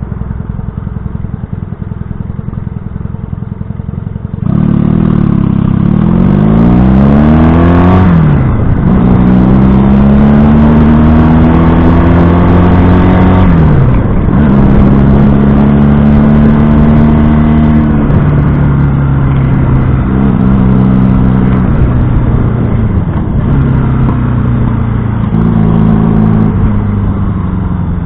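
1970 Honda CB175 parallel-twin motorcycle engine rumbling at low revs, then pulling away hard. The revs climb and drop back at two upshifts, then it runs at steadier speed with the throttle easing off and on.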